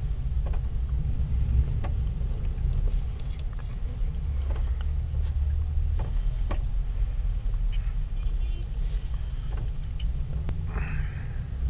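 Low, steady rumble of a car's engine and road noise heard from inside the cabin while creeping in stop-and-go traffic, with scattered faint clicks.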